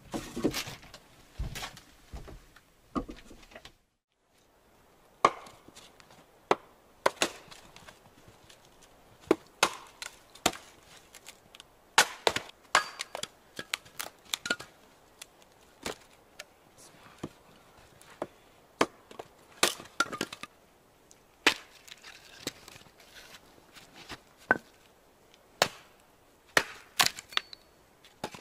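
Two people splitting firewood rounds with axes: sharp, irregular chops and cracks of wood splitting, about one or two a second, with the strokes of the two choppers sometimes overlapping.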